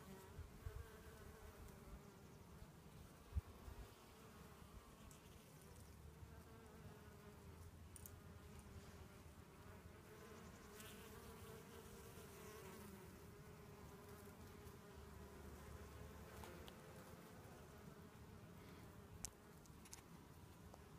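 Honeybees buzzing around a blossoming tree: a faint, steady hum that wavers and drifts in pitch as bees come and go, with a couple of brief ticks, the sharpest about three seconds in.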